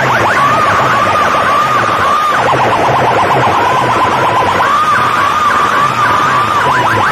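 Very loud siren-like electronic effect blasted through a bank of horn loudspeakers: a tone that warbles up and down about twice a second, held flat for a couple of seconds midway, over a fast rattling pulse and a repeating low thump.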